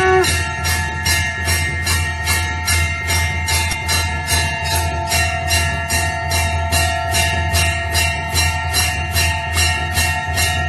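Temple bells ringing: an even, rapid jingling of about three strokes a second over several long-held ringing bell tones, above a steady low hum. A lower bell tone fades out right at the start.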